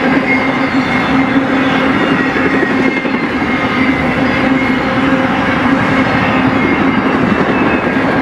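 BNSF intermodal freight train's cars rolling past at speed: a steady, loud run of steel wheels on rail with a constant low hum and faint higher ringing tones.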